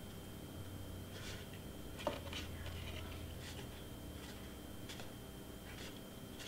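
Black cardstock rustling faintly as fingers press a glued tab onto a folded paper 3D letter, with a sharper click about two seconds in. A low steady hum runs underneath.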